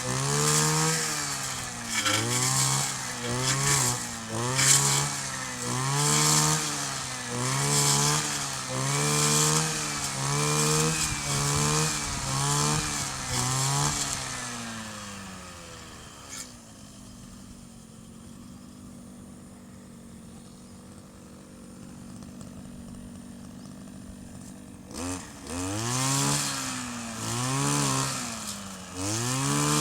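Kioritz 260 brush cutter's small two-stroke engine revved up and down about once a second, settling to a steady idle about halfway through, then revved again repeatedly near the end.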